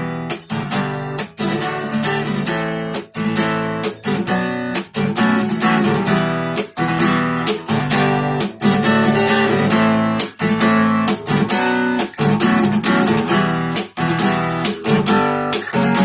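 Guitar strumming chords in a steady rhythm, with brief dips between strokes; an instrumental passage with no singing.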